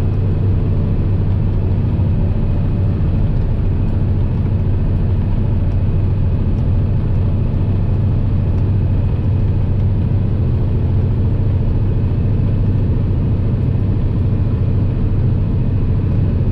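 Kenworth truck's Cummins diesel engine running at a steady cruise, heard from inside the cab: an even low drone that does not rise or fall.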